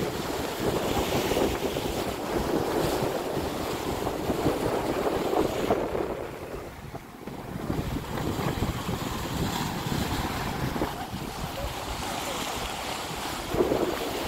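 Wind buffeting the microphone over the rush of choppy sea water. The wind eases for a moment about six seconds in.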